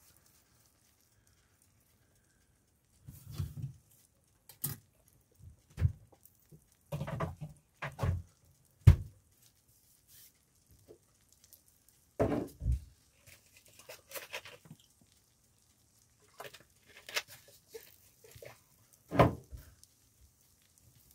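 Irregular knocks, thumps and short rustles, the sharpest about nine seconds in, over a faint sizzle of bread slices frying in butter in a non-stick pan.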